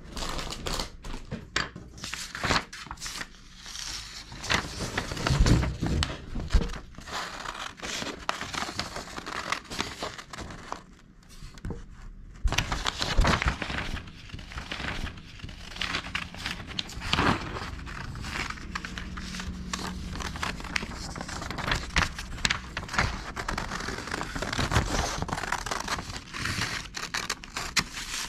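Sheets of paper rustling and crinkling as they are handled, with scissors snipping through a printed paper sheet in quick, uneven cuts. There is a short lull near the middle.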